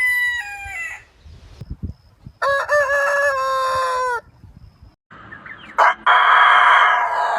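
Roosters crowing: the end of one crow trails off in the first second, then another rooster gives one full crow of about two seconds, its pitch dropping at the end. About six seconds in, a click is followed by a steady, dense sound of a different kind.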